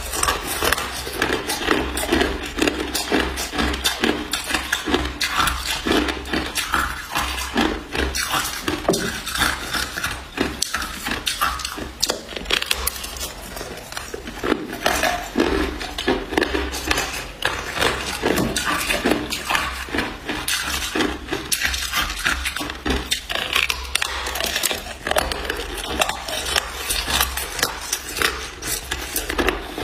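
Hard clear ice being bitten off a thick slab and chewed close to the microphone: a dense, continuous run of sharp cracks and crunches.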